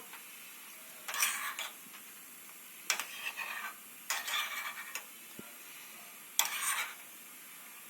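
A spoon stirring and scraping a pan of ginger and honey as it cooks down into a thick syrup, in four short strokes.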